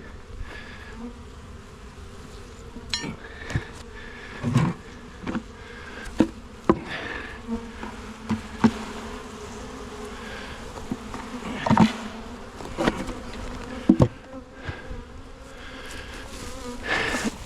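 Honeybees buzzing in a steady hum around an open hive, with about ten sharp knocks and clunks of wooden hive frames and boxes being handled.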